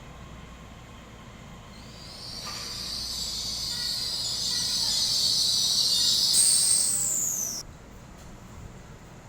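Electric train running through a station, building to a loud hiss with a high whine that falls in pitch, then cutting off suddenly about two seconds before the end.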